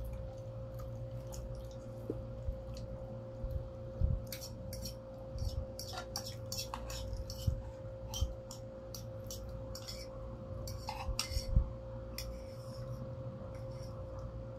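Metal forks clicking and scraping on ceramic plates as noodles are eaten, in a run of sharp clicks through the middle, over a steady low hum.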